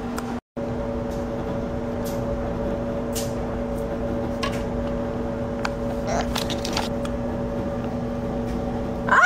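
Steady mechanical household hum with a few faint clicks and taps; the sound cuts out for about half a second near the start.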